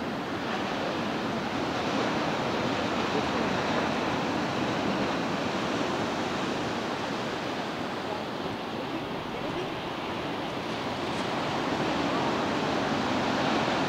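Waterfall's water rushing and splashing steadily as one even roar of noise.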